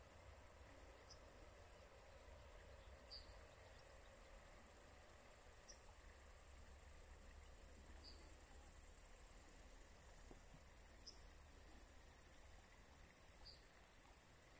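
Faint, steady high-pitched chirring of crickets, pulsing rapidly and growing a little louder about halfway through, with short faint chirps every two to three seconds.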